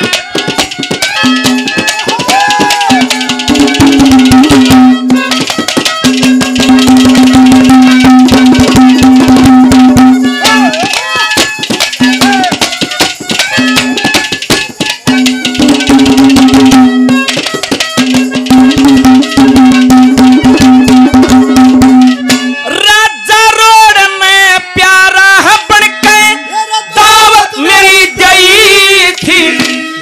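Live folk ragni accompaniment: a hand drum plays a fast, dense beat under a held melodic note. About three-quarters of the way through, the held note gives way to a wavering melodic line with vibrato.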